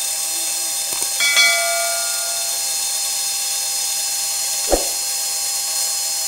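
Metal-cutting bandsaw running through bar stock: a steady hiss with a high whine. About a second in, a click and a bell-like chime from a subscribe-button sound effect, and a single knock near the end.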